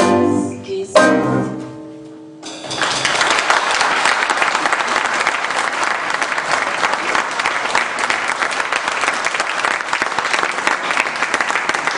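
A band's music ends on its last notes, which fade away. About two seconds in, a hall audience starts applauding suddenly and keeps up steady clapping.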